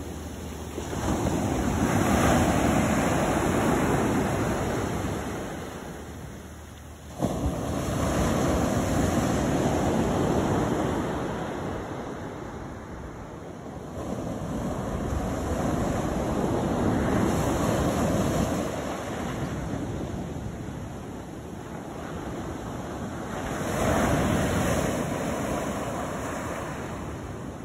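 Ocean surf breaking and washing up a sandy beach, its rush swelling and fading in about four long surges, one every seven seconds or so. There is an abrupt jump in level about seven seconds in.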